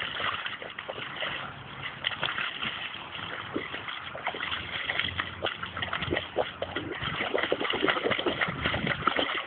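A springador dog splashing and sloshing about in a puddle. The splashes come in quick, irregular bursts and grow busier and a little louder towards the end.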